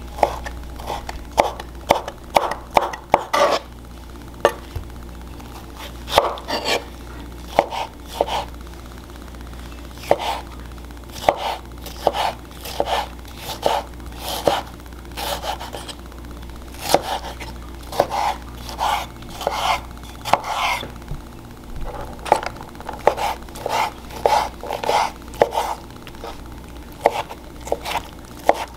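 Kitchen knife chopping peeled tomatoes on a wooden cutting board: runs of quick knocks of the blade against the wood, broken by short pauses.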